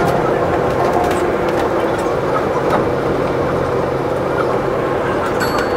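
Running noise of a Chiba Urban Monorail suspended, rubber-tyred monorail car, heard from inside the front cab: a steady, even rushing noise with a faint low hum and occasional small clicks.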